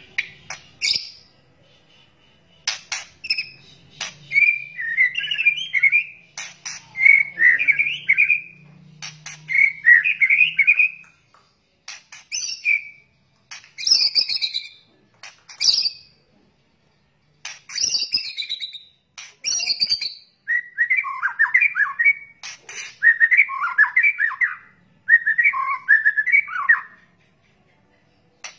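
White-rumped shama (murai batu) giving its harsh rattling 'kretekan' call, used as a lure: rapid scratchy chatter mixed with sharp clicks, in phrases a second or two long with short pauses between them.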